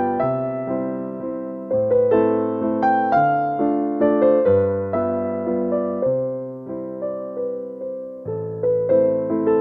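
Background piano music: a gentle melody of struck, fading notes over chords.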